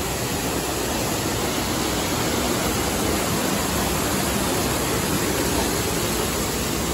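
Man-made waterfall pouring over rockwork: a steady, full rush of falling water.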